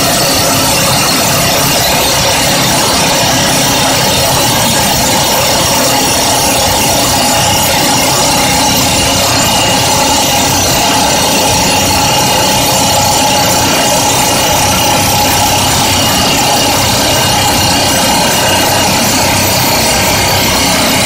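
Excavator-mounted FINE EX-Drill 300 hydraulic rock drill drilling into rock, a loud steady mechanical din of rapid hammering that never lets up, mixed with the excavator's engine running.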